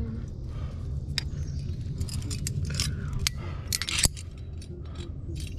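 Trad climbing rack clinking: metal cams and carabiners jangle and knock together as the climber handles gear on lead, with the sharpest clack about four seconds in. A steady low rumble runs underneath.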